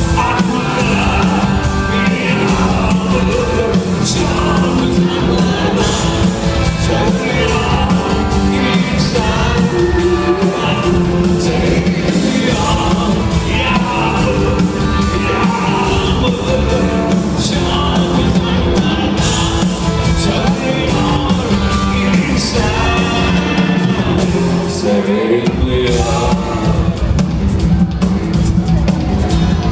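Live rock band playing loudly in a large hall, with drums, electric guitars and violin, and a voice singing over it.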